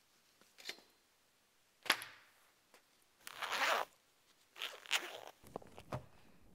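A thump about two seconds in, then the zip of an insulated lunch bag pulled open in one rasp, followed by aluminium foil rustling and crinkling as the bag is opened out, with a few small clicks.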